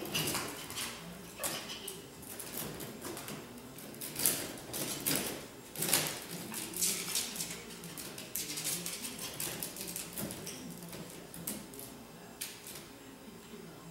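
Small dog's claws scrabbling and clicking on a plastic-mesh baby gate as it climbs up it, with the gate rattling: irregular clicks and knocks, busiest in the first half.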